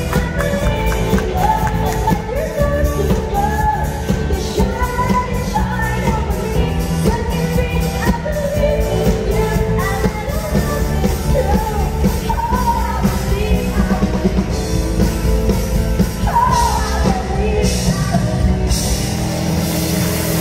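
A live rock-pop band, with drum kit, electric guitars and bass, backing a woman singing into a microphone, loud and reverberant in a large hall.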